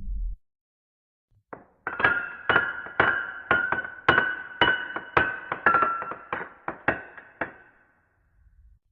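A horror sound effect: a low rumble cuts off just after the start, then after a short silence a bell-like chime is struck over and over, about twice a second, on nearly the same pitch, each note ringing briefly, until it fades out near the end.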